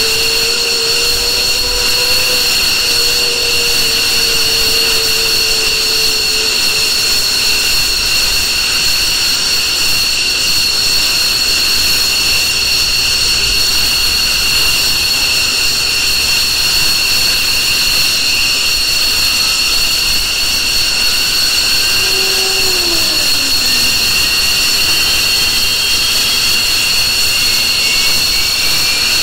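F-15 fighter's F100 turbofan engines running with a steady, loud, high-pitched whine. A fainter tone rises slowly in the last several seconds.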